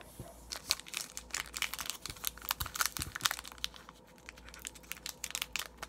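Foil wrapper of an Upper Deck hockey card pack crinkling in the hands as it is handled and torn open: a dense run of short, sharp crackles.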